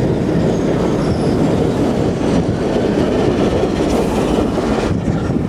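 Shunting diesel locomotive moving close by: its diesel engine running and its steel wheels rumbling on the rails.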